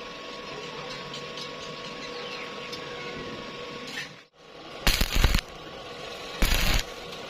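Welding machine humming steadily, then two short bursts of stick-welding arc crackle about five and six and a half seconds in, each about half a second long, typical of tack welds on thin square tube.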